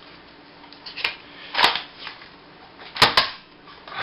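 Buzz Bee Clip Tek foam dart blaster being worked: a handful of sharp plastic clicks and short noisy bursts, with a quick double click about three seconds in.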